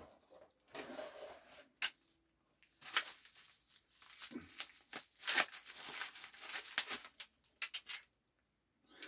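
Clear plastic wrapping crinkling and tearing as it is pulled off golf iron heads, in uneven rustling bursts with a few sharp clicks.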